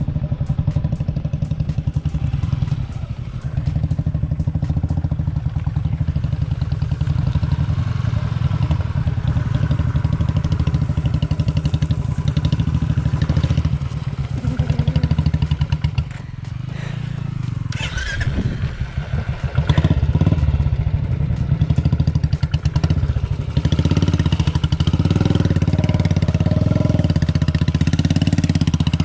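Single-cylinder motorcycle engine running under load on a rough off-road hill climb. The engine sound drops away briefly about halfway through, then picks up again with changing revs.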